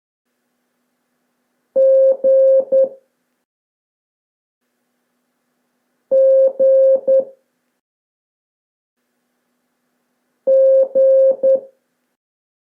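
Morse code beep tone sending the letter G (dash dash dot) three times, about four seconds apart: each time two long beeps and one short beep at one steady mid pitch.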